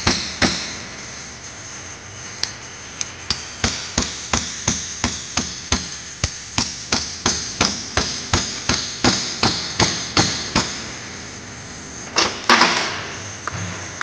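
Hammer tapping a socket used as a driver to seat a new seal into the pinion housing of a steering box: a steady run of light metal taps, about three a second, then a louder, longer clatter near the end.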